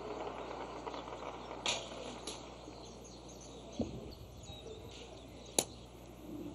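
Quiet outdoor ambience with faint bird chirps and a few light knocks, then one sharp click about five and a half seconds in.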